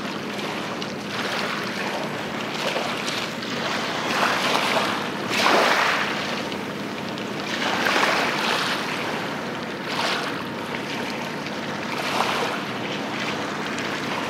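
Harbour water and wind rushing on the microphone, swelling every couple of seconds, over a faint steady low hum from the tugboats' engines.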